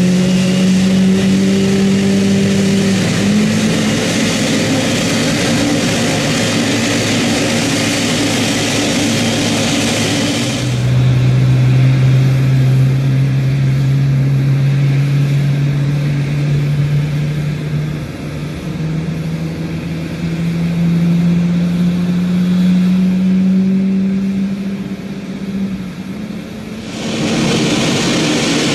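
Boeing 777-300ER's GE90 jet engines running at low power during pushback and start: a steady drone with a strong hum. The sound changes abruptly about ten seconds in, after which the hum rises slowly in pitch as the engine spools up.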